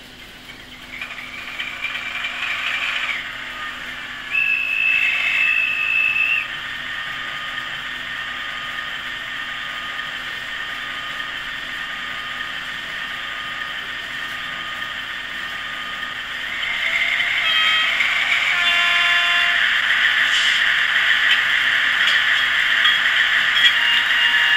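Sound decoder of a model CC 68000 diesel locomotive playing a simulated diesel engine through its small speaker. The engine starts about a second in, gives a short steady high tone around four seconds in, and settles into a steady run. About two-thirds of the way through it grows louder, with several tones added.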